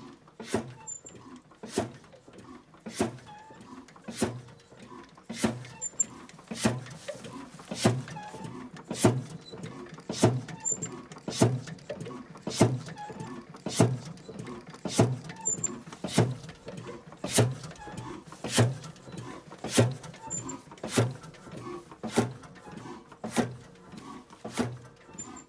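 Crossley O115 single-cylinder heavy-oil stationary engine running slowly and evenly, a heavy exhaust beat about once every 1.2 seconds with lighter mechanical knocks between the beats.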